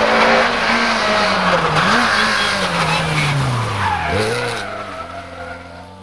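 Two-litre class rally car at full stage speed, its engine note falling steadily as it comes through, with a quick dip and rise in pitch about four seconds in, like a downshift blip, then fading. Tyre noise and squeal run under the engine.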